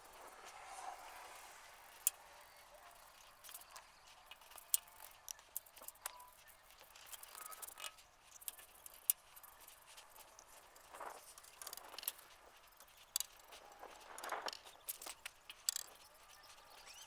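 Faint, irregular clicks and a few brief scraping sounds over a quiet background, typical of hand work with a brush and paint can.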